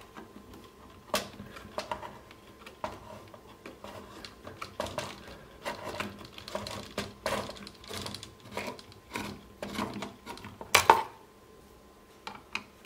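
Large screwdriver working a stubborn screw inside a Dali Katch G2 speaker's housing: irregular clicks, scrapes and small knocks of metal tool on the casing and parts, with one louder clack about eleven seconds in.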